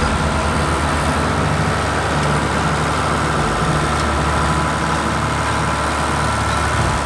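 Schlüter Compact 950 V6 tractor engine running steadily.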